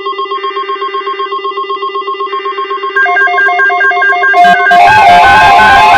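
Several NOAA weather alert radios sounding their electronic alarms at once, set off by a new alert coming in: a rapid pulsing beep over a steady tone, joined about three seconds in by a second receiver's two-note alternating beep. Faint chirping data bursts of the alert header sit underneath, and a rush of hiss comes in near the end.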